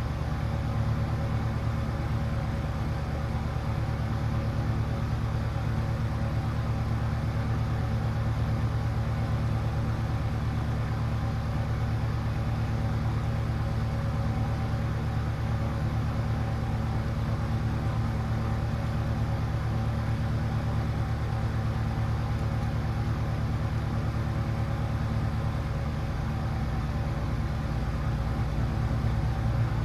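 A steady low hum, a little louder near the end.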